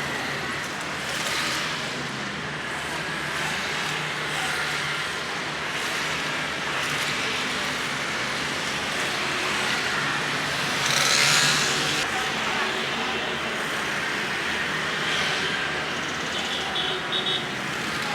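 Steady road traffic, with one vehicle passing louder about eleven seconds in and a few short high beeps near the end.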